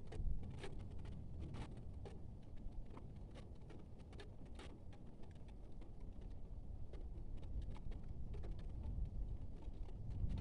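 Rain pattering in irregular drips and taps over a low, steady rumble.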